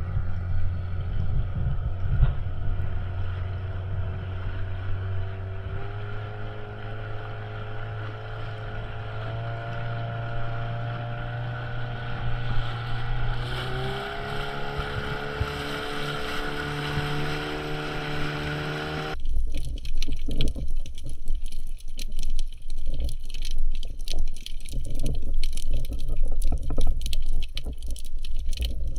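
A motorboat engine is running steadily. Its pitch steps up twice as it gathers speed. About two-thirds of the way through, the sound cuts abruptly to a crackly, rustling noise.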